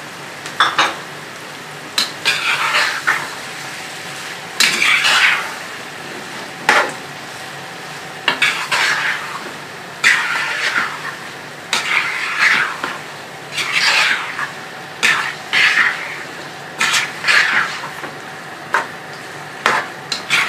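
Metal spoon stirring and scraping chicken in a karahi of hot ghee with fried onions and ginger-garlic paste, over a sizzle. The scrapes come about every one to two seconds, with clinks of the spoon against the pan.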